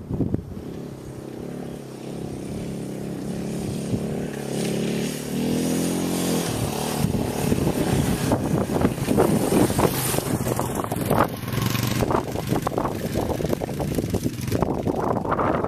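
Dirt bike engine approaching, its pitch rising and growing louder over the first several seconds. It then runs loud and rough as the bike comes close over the rocky trail.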